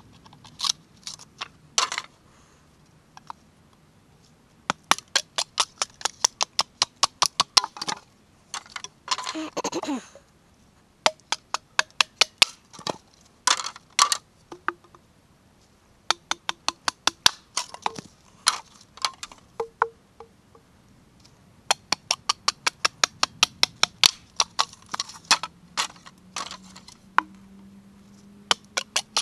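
Green bamboo being chopped and split with a blade: runs of rapid sharp knocks, several a second, broken by short pauses, with a longer crackling split about nine seconds in.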